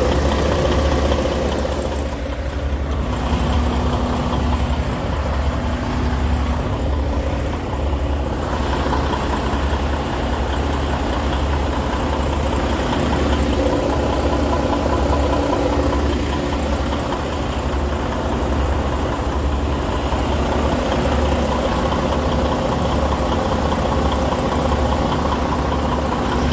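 A truck's diesel engine idling steadily: a constant low rumble with a steady hum, heard from inside the cab.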